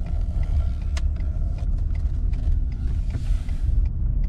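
Vehicle driving, heard from inside the cabin: a steady low road and engine rumble with a few faint clicks, and a brief rush of hiss about three seconds in.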